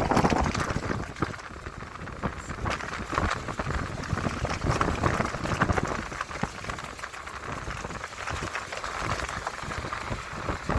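Stormy weather noise: a rough, crackling hiss that swells and fades, from wind and rain ahead of a hurricane.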